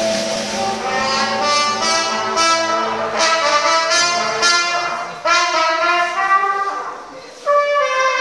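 Live dance band playing, the melody moving in quick notes; the music drops quieter for a moment near the end, then comes back in loud.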